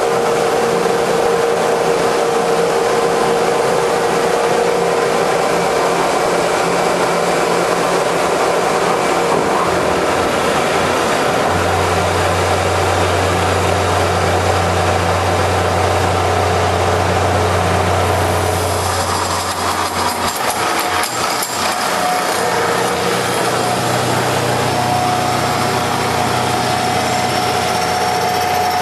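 CL-1500B hydraulic copying lathe running, a steady mechanical whir with a deep hum that comes in about a third of the way through. A little past the middle the sound changes, with a short stretch of rapid clicking, then settles into a steady run with a different tone.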